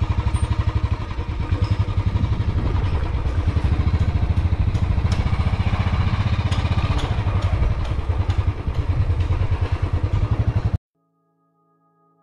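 Motorcycle engine running with a steady pulsing throb as the bike rides along a rough dirt lane, with scattered clicks and rattles. The sound cuts off suddenly about eleven seconds in.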